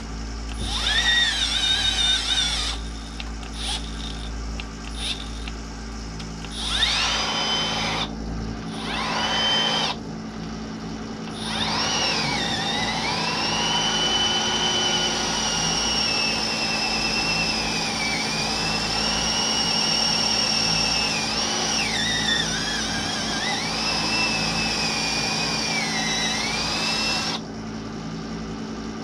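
Electric drill with a long bit boring into a log wall. A few short spurts come first, then one long run of about fifteen seconds whose whine dips and recovers as the bit loads up in the wood, stopping suddenly near the end.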